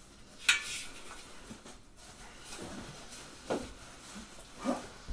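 Quiet unpacking noises: a subwoofer being handled in its cardboard box and plastic bag. A short, sharp sound comes about half a second in, followed by faint scattered rustles and knocks.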